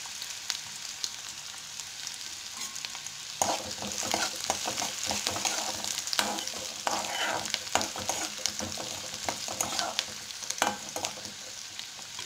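Chopped onions sizzling in hot sesame oil in a kadai. From about three and a half seconds in, a spatula stirs them, scraping and tapping against the pan over the sizzle.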